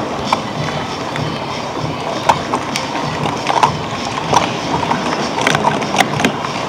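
Plastic sport-stacking cups clicking and clattering in quick, irregular taps as they are stacked up into pyramids and back down in a stacking run. Behind them is the steady hubbub of a busy hall.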